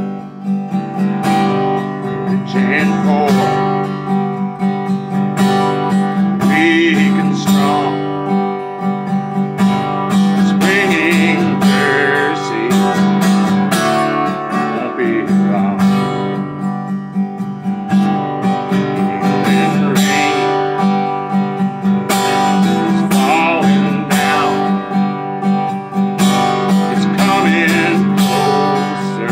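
Taylor acoustic guitar strummed steadily in chords, with a man's voice singing along at times.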